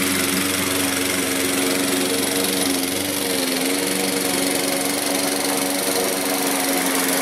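Poulan Pro 21-inch gas push mower with a Honda engine running steadily while cutting grass; its engine note dips briefly about three and a half seconds in.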